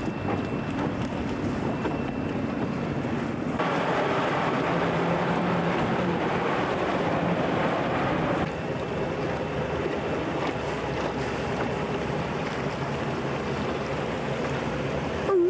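Steady rush of wind on a camcorder microphone over water noise, with no voices. The level jumps up suddenly about three and a half seconds in and drops back just as suddenly about eight seconds in, where the recording cuts.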